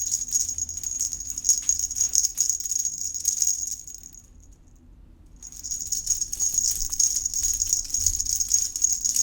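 Toy insect buzzing and rattling in quick clicks as it moves. It stops for about a second midway, then starts again.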